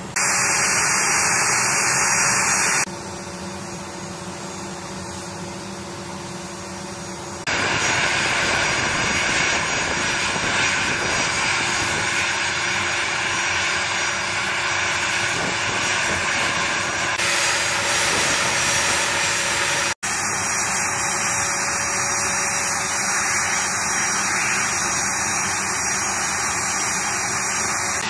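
A-10C Thunderbolt II's General Electric TF34 turbofan engines running at ground idle during an engines-running turn, a steady loud rushing noise with a steady whine. It goes quieter for a few seconds about three seconds in, then comes back up.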